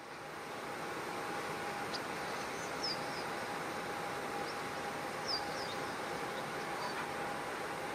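Airliner running on the ground: a steady jet rush with a constant mid-pitched whine, fading in over the first second. Small birds chirp in short high calls throughout.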